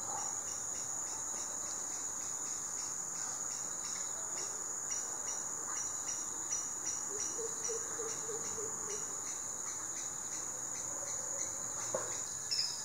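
Insects chirping steadily: a continuous high-pitched trill with short chirps repeating about two or three times a second.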